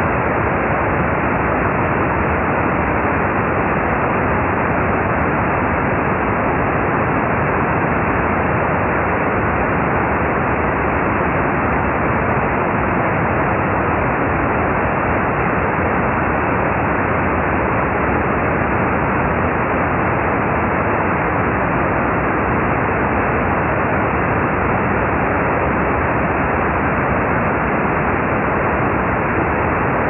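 Steady brown noise: an even, unchanging rushing hiss that never varies, its sound lying below about 3 kHz.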